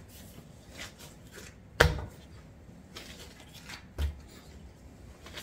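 Hands kneading soft bread dough on a floured silicone mat: soft rubbing and squishing, with a sharp thump just under two seconds in and another about four seconds in as the dough hits the mat.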